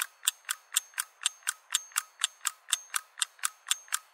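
Rapid, very even mechanical clicking, about four clicks a second, with every other click slightly stronger.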